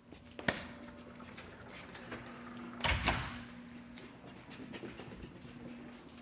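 Australian Shepherd puppy's paws pattering on carpet as it runs, with a sharp click about half a second in and a louder double knock around three seconds, over a low hum that comes and goes.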